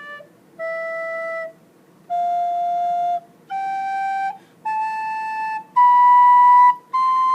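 Soprano recorder playing an ascending C major scale: single held notes about a second each with short breaks, stepping up from D through E, F, G, A and B to the high C near the end.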